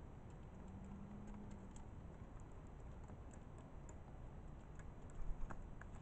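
A mourning dove pecking seed from a plastic dish makes light, irregular ticks. A few louder knocks come about five seconds in.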